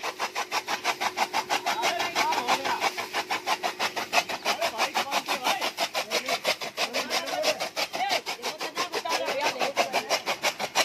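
Hand-cranked chaff cutter chopping dry fodder stalks: its flywheel blades slice the stalks in rapid, even strokes, several a second, without a pause.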